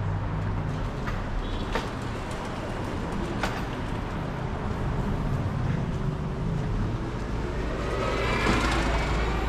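City street traffic: motor vehicles passing with a steady rumble of engines and tyres, and a couple of short sharp clicks. A vehicle grows louder near the end.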